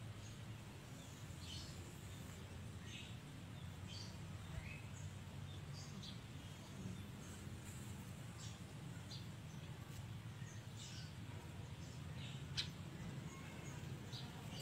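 Faint bird chirps, short and scattered, over a low steady background hum, with one small click near the end.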